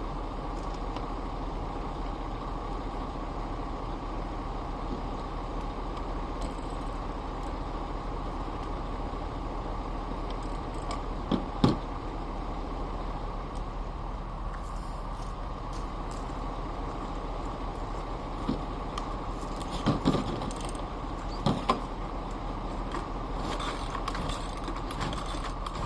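Small clicks and knocks of hand tools and parts being handled during work on a leaf blower: one sharp knock about twelve seconds in, then a run of clicks near the end, over a steady background hum.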